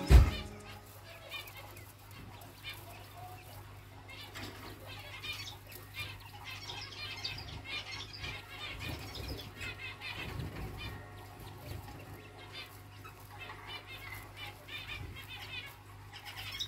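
Chinese dwarf quail moving and pecking about in straw bedding: light rustling and small ticks over a faint, steady low hum. A single sharp knock comes right at the start.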